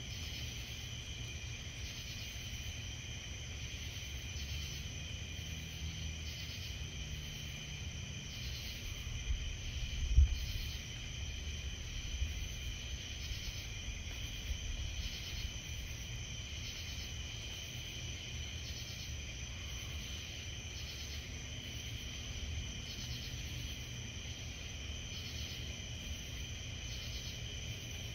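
A summer night insect chorus of crickets and katydids: a steady high trilling with a pulse repeating about once a second. Beneath it runs a low rumble that swells about ten seconds in, with a brief low thump.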